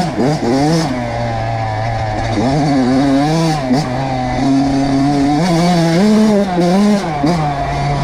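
Kawasaki KX85 two-stroke dirt bike engine revving, its pitch rising and falling again and again with the throttle, over a steady low hum.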